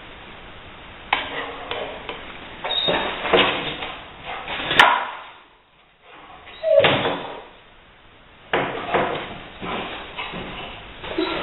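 Irregular bumps, knocks and scuffs as a rottweiler hunts around plastic trash cans and tools leaning against a wall, with a sharp crack about five seconds in.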